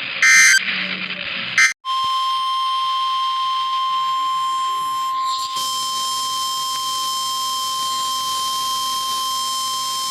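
NOAA Weather Radio emergency alert signal. Two short bursts of warbling SAME digital data tones come in the first two seconds. Then comes the steady 1050 Hz warning alarm tone, one long unbroken beep, which announces the warning broadcast that follows; radio hiss rises under it about halfway through.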